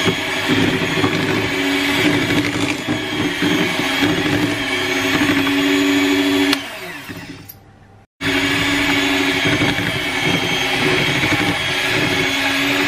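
Electric hand mixer beating flour into a stiff butter-and-egg cookie dough, its motor running with a steady whine. About six and a half seconds in it is switched off and winds down, then it runs again just after eight seconds.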